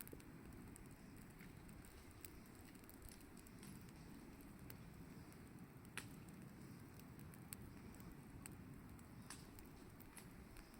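Wood fire burning faintly, a low steady rush of flame with scattered sharp crackles and pops, the loudest about six seconds in.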